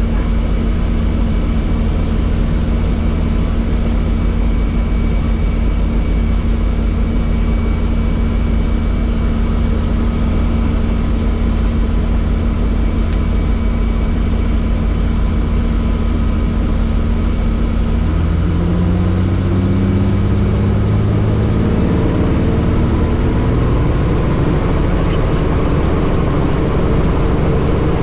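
Helicopter engine and rotor running steadily. About two-thirds of the way through, the low rumble gives way to tones that rise in pitch over a few seconds and then hold at the higher pitch.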